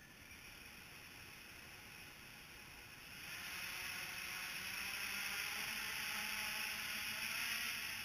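Quadcopter's electric motors and propellers whirring with a steady high whine, growing louder about three seconds in as the throttle comes up and it lifts off into a hover.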